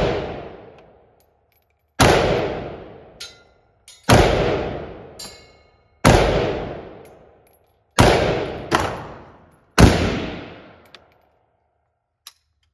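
Rifle fired one shot at a time on an indoor range: six loud shots, most about two seconds apart with two close together about two-thirds through, each ringing out in a long echo off the enclosed range. A light metallic clink follows the second shot.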